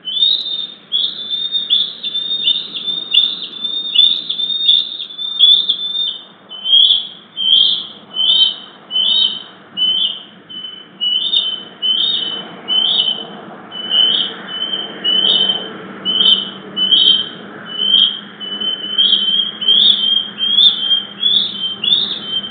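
Two young bald eagles squeeing: a long run of high, piercing squealing calls, the two voices overlapping in two-part harmony, about two a second at first, then a little over one a second. They call as a parent flies by.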